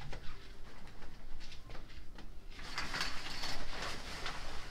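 Shower curtain pulled aside, its rings scraping along the metal rod, loudest for about a second a little past halfway, amid soft rustling and shuffling.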